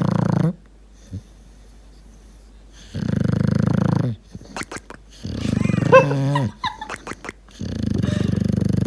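English bulldog snoring in his sleep: four loud, rasping snoring breaths about two and a half seconds apart. The third snore breaks into a squeaky, wavering tone, and short clicks come between the snores.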